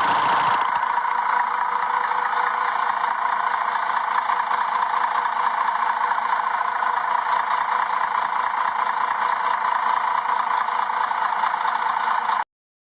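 Mercedes-Benz engine idling steadily, running evenly, then cutting off suddenly near the end.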